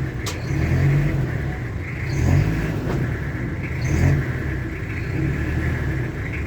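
Toyota Hilux engine running, its sound swelling and easing every second or two as if revved lightly over and over.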